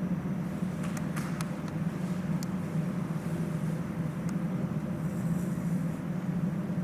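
Steady low mechanical hum over faint background noise, with a few light clicks about a second in.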